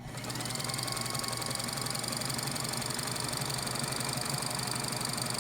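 Singer 24-55 double-needle chainstitch sewing machine running at a steady speed on its belt-driven electric motor, stitching a row of short stitches. It starts right at the beginning and holds an even, fast stitching rhythm.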